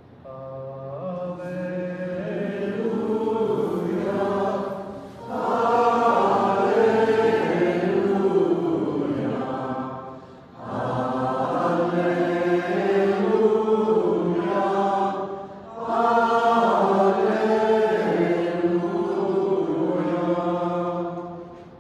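Voices chanting a sung Gospel acclamation in four long, slow phrases, each about five seconds, with short breaths between.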